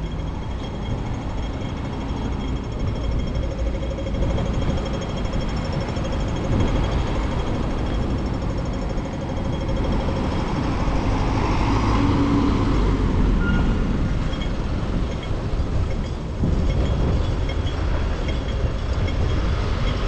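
City street traffic: cars driving past on a multi-lane road over a steady low rumble, with one passing close about halfway through.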